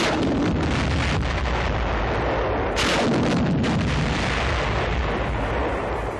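Live 7.2-inch T-37 demolition rockets exploding in quick succession: a cluster of sharp blasts at the start and another about three seconds in, with continuous rumble between.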